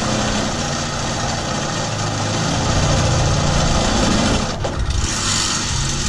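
Cordless drill running in two long runs against the arch tube, its pitch shifting under load, with a short break about four and a half seconds in.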